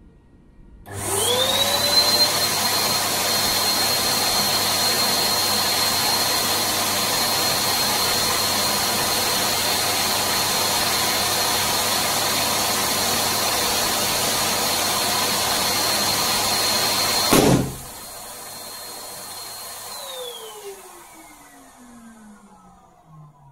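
Electric balloon pump starts with a rising whine and runs steadily, inflating a 12-inch crystal latex balloon until the balloon pops with a single sharp bang. The pump runs on more quietly, then is switched off and its whine falls away as the motor spins down.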